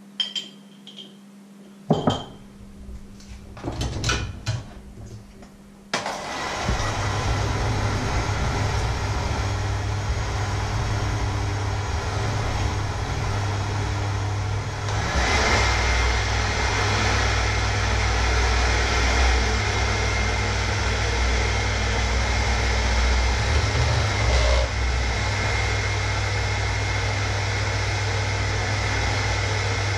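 Electric hand mixer running with its beaters in a plastic measuring jug, whisking an egg mixture. It starts about six seconds in, after a few light knocks and clicks, and gets louder about halfway through.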